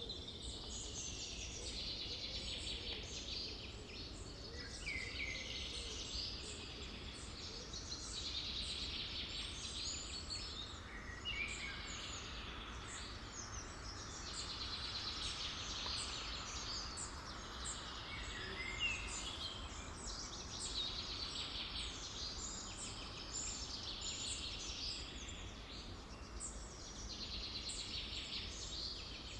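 Forest ambience: a dense chorus of many birds chirping and trilling continuously, over a steady low rumble.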